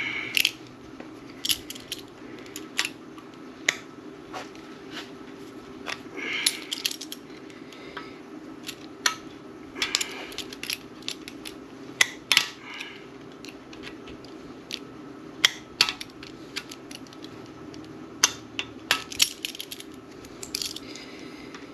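Irregular sharp metallic clicks and clinks of vice grips gripping and working at a part on a cast-iron Ford FE engine block, some with a short ring, over a steady low hum.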